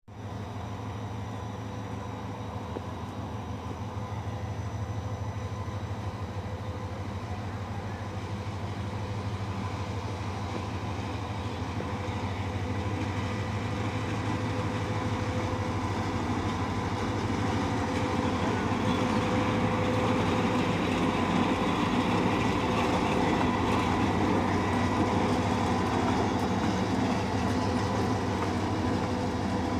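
Diesel locomotive engine running with a steady droning hum as it hauls a passenger train closer, growing louder over the first twenty seconds or so and then holding.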